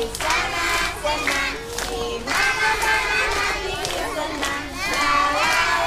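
A large group of young children's voices calling out together in unison, in several long held phrases.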